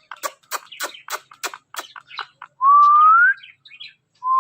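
Talking parrot making a fast series of short clicks, then a clear whistle that rises in pitch about two and a half seconds in, with a second rising whistle starting near the end.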